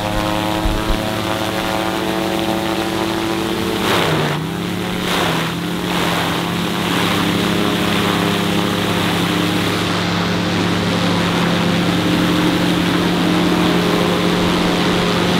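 Rotax engine and propeller of a newly built Sling High Wing light aircraft running steadily during its first engine runs. About four seconds in, the note dips briefly and runs unevenly for a couple of seconds, then settles.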